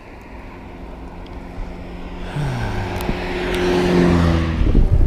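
Road traffic: a motor vehicle's engine hum growing louder as it approaches, its pitch dropping once about halfway through. A loud low rumble sets in near the end.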